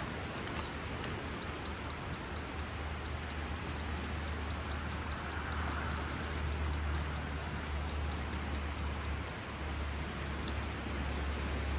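Many short, high-pitched chirps, several a second, over a steady low rumble and hiss of outdoor noise.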